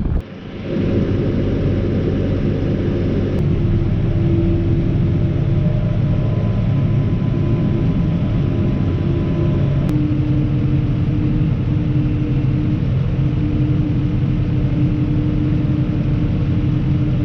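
Tractor engine running steadily at a constant throttle of about 1200–1300 rpm, a loud even drone that settles in after a brief lull at the start.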